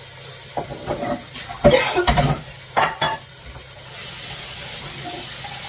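Metal utensil scraping and clinking against a pot and plate, a handful of sharp knocks in the first three seconds, over the steady sizzle of a steak frying in a pan.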